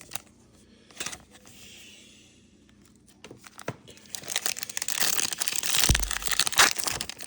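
Foil Pokémon booster pack wrapper being torn open and crinkled, starting about four seconds in after a few light clicks.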